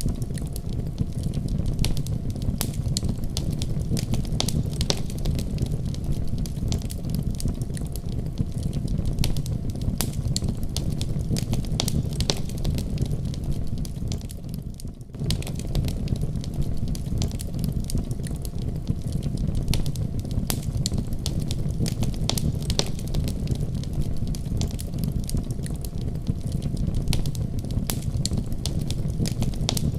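Firewood burning in a wood-burning stove: dense, irregular crackling and popping of the logs over a steady low rumble of the fire, dipping briefly about halfway through.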